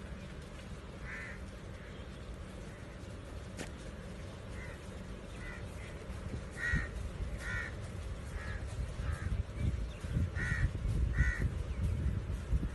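Crows cawing, about nine short caws spread through the clip, over the low rolling rumble of skateboard wheels on brick pavers that grows louder and rougher in the second half.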